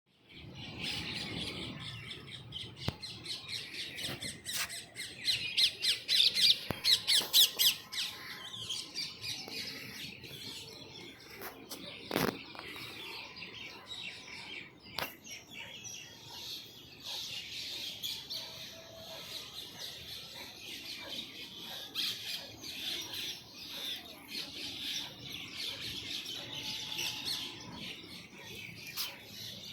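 Many birds chirping and calling over one another in a dense chorus, loudest about five to eight seconds in. A single sharp knock about twelve seconds in.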